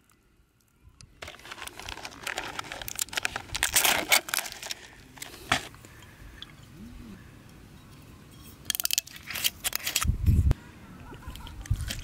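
Peel-off plastic lid being pulled off a cup of packaged ice, a dense run of crinkling and crackling, with the ice shifting in the cup. A second burst of crackles and a low thump come near the end.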